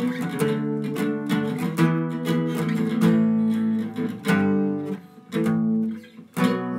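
Acoustic guitar strummed in steady, driving chords. In the last couple of seconds the chords come as separate hits with short gaps between them.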